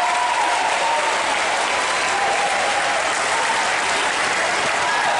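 Spectator crowd in an indoor sports hall applauding steadily, a dense even clatter of many hands clapping.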